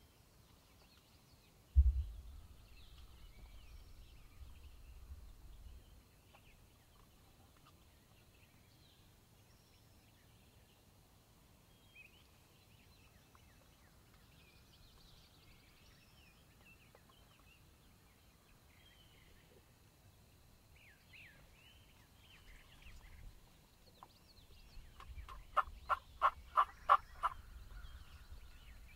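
Wild turkey gobbler gobbling once near the end, a quick run of about eight notes, over faint songbird chirps. A sharp low thump comes about two seconds in.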